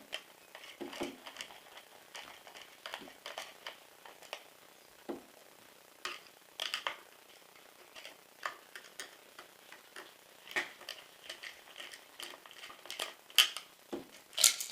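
Irregular small clicks, taps and brief scrapes of metal and plastic parts being handled as the pistol grip is worked off an airsoft M4's gearbox.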